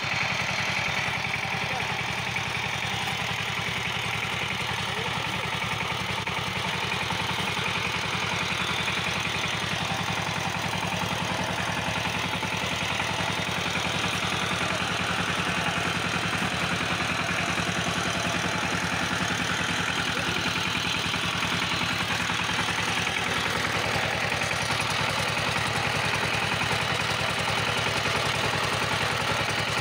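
CHANG TUO 12 hp power tiller's single-cylinder diesel engine running steadily, an even chugging that holds without a break.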